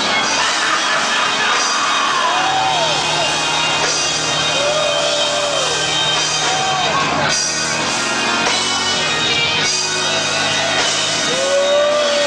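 Loud live praise music from a church band, with a man's voice shouting long, rising-and-falling phrases into a microphone over it.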